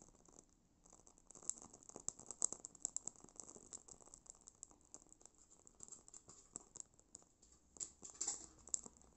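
Faint, irregular crackling and ticking of a dry bay leaf held in a small candle flame as it chars, with a denser, louder run of crackles about eight seconds in.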